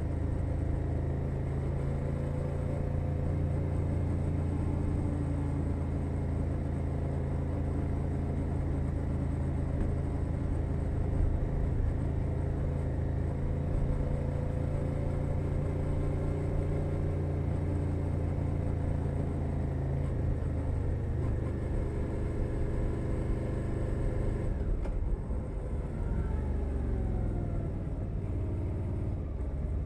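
2021 Suzuki SV 650's 645 cc V-twin engine with a Leo Vince Nero exhaust, heard from under the seat while riding at a steady engine speed. About 25 s in the throttle eases and the revs fall for a few seconds, then rise again at the end.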